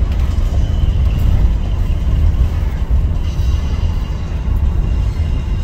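Steady low rumble of road and engine noise inside a moving car's cabin, driving in light rain.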